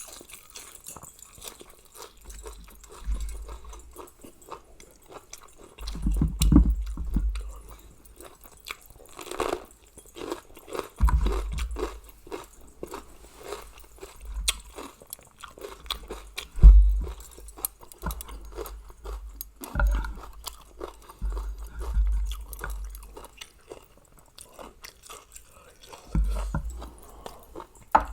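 Close-up chewing and crunching while eating a Thai mixed seafood pounded salad, with many small crackles and several dull low thumps.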